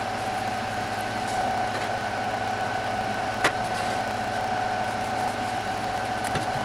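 A steady, even machine hum, with one sharp click about halfway through.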